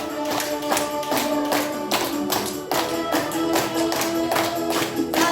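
Upbeat music with a melody and a quick, regular beat of bright, sharp percussive strokes.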